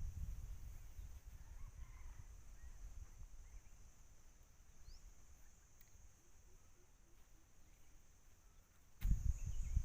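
Wind rumbling on the microphone over a steady high insect drone, with a few short chirps. The rumble eases off, then about nine seconds in loud buffeting and knocks start suddenly.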